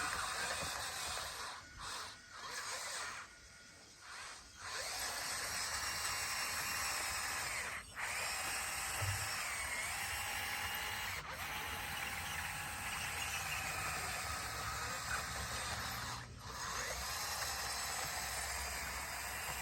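Bulldozer running: a steady machine noise with a whine that shifts in pitch a few times. The sound drops away briefly near the start and again twice later.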